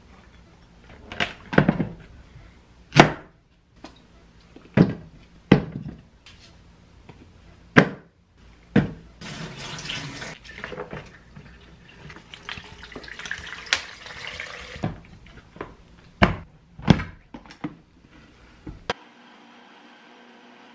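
Kitchen preparation sounds: a dozen or so sharp knocks and clinks of food and utensils set down on the counter and into a blender jar. Two spells of running water or pouring, a couple of seconds each, come around the middle, and a faint steady hum comes near the end.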